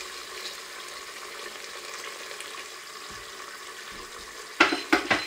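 Hot water poured from a kettle into a pot of frying onion and spices, with a steady sizzling hiss. About four and a half seconds in come three sharp knocks.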